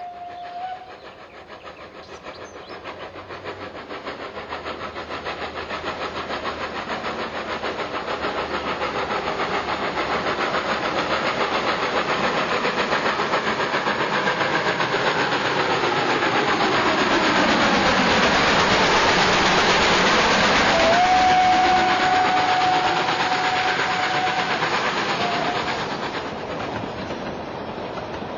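OO-gauge model steam train running along the track towards the microphone and past it, its wheels clicking on the rails, growing steadily louder and then fading near the end. A steady whistle tone sounds for a few seconds after the train passes closest, and another whistle tone ends just at the start.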